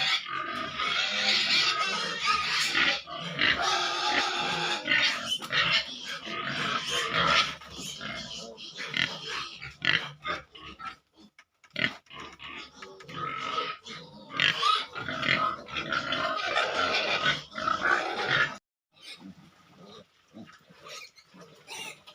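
Pigs grunting and squealing in a pen, a dense, uneven chorus that drops off suddenly near the end to fainter sounds.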